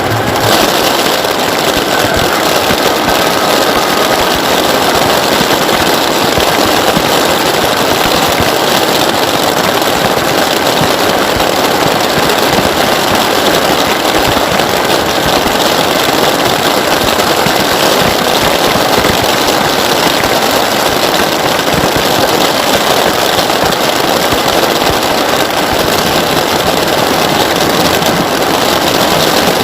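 Heavy rain falling steadily: a loud, dense, even patter of countless drops that does not let up.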